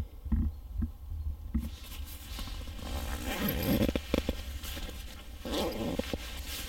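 A zipper being pulled open in rasping strokes, with fabric rustling and handling bumps; the zipping is strongest around the middle and again near the end.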